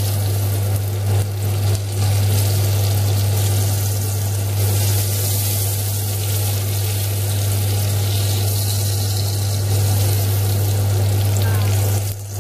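Shrimp frying in hot oil in a nonstick pan, a steady sizzling hiss, over a loud, steady low hum.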